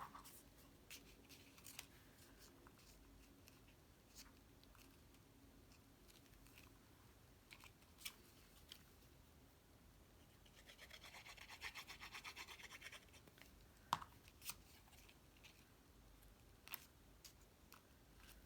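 Near silence with faint handling of a paper card: scattered light clicks and taps, and a short run of rapid scratchy ticks about eleven to thirteen seconds in.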